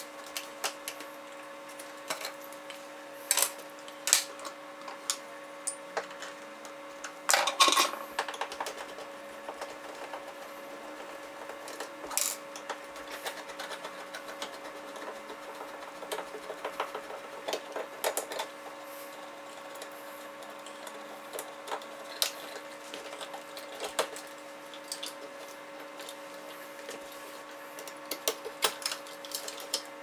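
Screwdriver and hands working a light switch out of its metal wall box: scattered clicks, taps and small metal scrapes from the screws, cover plate and switch yoke, with a busier clatter about seven seconds in. A steady low hum runs underneath.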